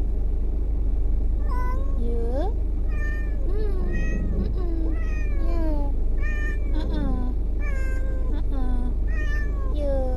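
Domestic cat meowing over and over, about a dozen drawn-out meows, most falling in pitch: the distressed protest of a cat that hates car rides. A steady low rumble of the moving car runs underneath.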